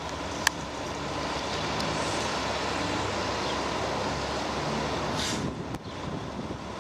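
A motor vehicle's engine running close by, steady with a low hum. There is a sharp click about half a second in and a brief hiss about five seconds in.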